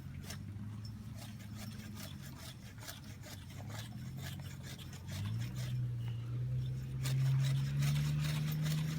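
Handsaw rasping back and forth through a conifer trunk in repeated strokes. A steady low hum underneath gets louder about five seconds in.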